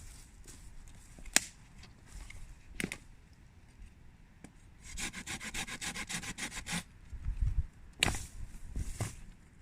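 Wood being worked by hand with a blade or saw: a quick run of rasping strokes, about eight a second, lasting nearly two seconds, with a few sharp separate cracks or knocks before and after.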